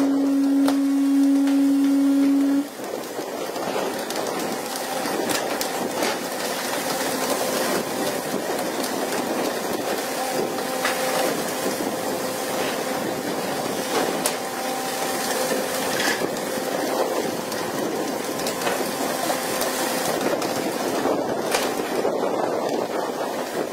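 A loud steady horn note for the first two and a half seconds, then the steady rush of wind and breaking sea spray along a fishing boat's side, with a faint engine hum and occasional sharp knocks.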